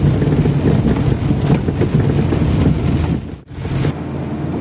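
Car driving on a rough, muddy dirt road, heard from inside the cabin: a steady low rumble of engine and tyres with small knocks from the bumps. It cuts out briefly about three and a half seconds in and resumes a little quieter.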